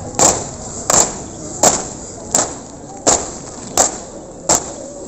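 A steady marching beat: a sharp thump about every 0.7 seconds, seven in a row, keeping an even cadence.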